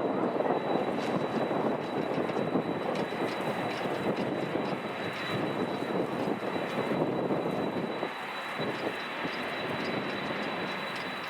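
Airliner engine noise heard from the airfield side, mixed with loud, gusty wind buffeting the microphone in a strong crosswind.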